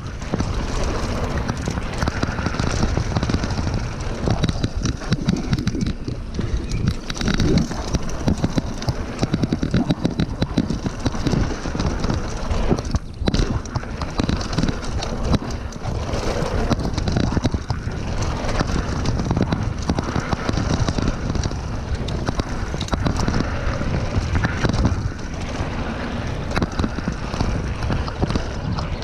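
Mountain bike descending a dirt trail at speed: a continuous rush of wind on the microphone and tyres on loose dirt, with the bike rattling and clattering over bumps.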